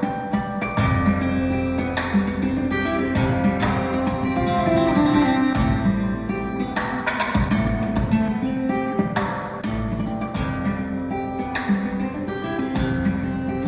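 Acoustic guitar music, with plucked notes over a sustained bass, played back through KEF LS50 Meta bookshelf speakers and picked up in the room by a phone's microphone.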